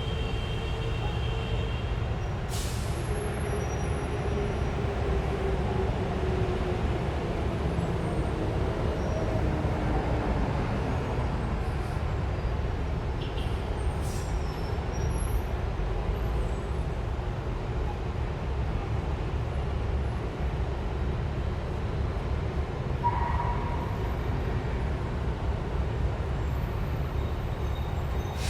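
Busy city street traffic: a steady low rumble of engines, with one vehicle's engine note falling as it slows over the first several seconds. A short high squeal comes a little before the end, and a few sharp clicks are heard early on and near the middle.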